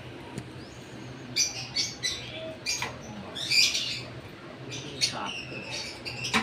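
African lovebirds chirping: a string of short, high, sharp calls through several seconds, with a few faint knocks of wire cages being handled.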